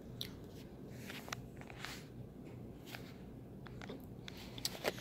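Quiet eating sounds: a handful of faint, scattered clicks and small smacks over a low steady room hum.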